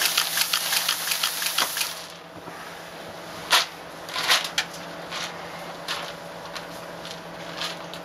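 Dry feed pouring from an overhead feed hopper's chute into a plastic bin, a dense rattling hiss that stops about two seconds in. After that come scattered clicks and rustles as the feed in the bin is handled and scooped, over a steady low machine hum.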